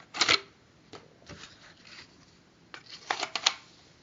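Paper and cardboard being handled in short rustles and clicks: a brief rustle at the start, a few faint ones after it, and a quick cluster of several near the end.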